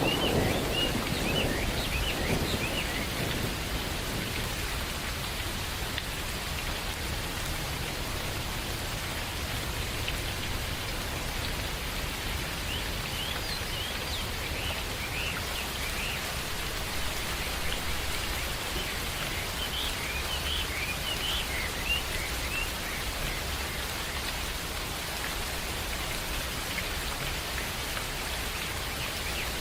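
Steady rain falling, with the last of a low thunder rumble dying away in the first few seconds. Birds chirp in short bursts now and then through the rain.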